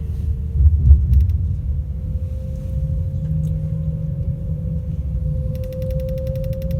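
Class 390 Pendolino's Alstom traction motors whining as the train runs, the whine rising slowly in pitch as it gathers speed, over a steady low rumble. A brief bump about a second in, and a fast even ticking near the end.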